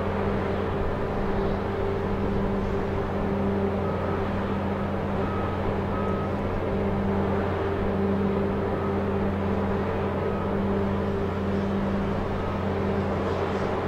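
Heavy harbour machinery running with a steady, deep hum that does not change, and a few faint short high tones now and then.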